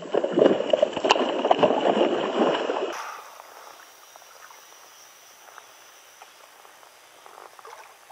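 Loud, choppy water splashing for about three seconds as a chatterbait lure is worked at the surface right beside the boat. Then it drops to soft water sounds with scattered faint ticks.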